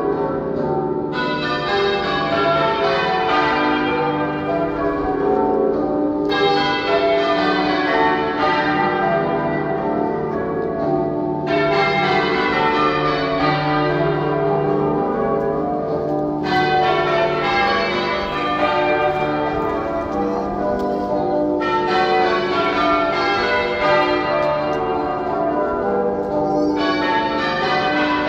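Half-muffled change ringing on cathedral bells: rows of clear open strokes alternate with rows of dull, muffled strokes, the pattern changing about every five seconds.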